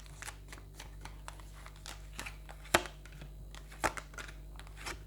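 Tarot cards being handled and laid on a table: soft rustling and small clicks, with two sharper taps, about three and four seconds in.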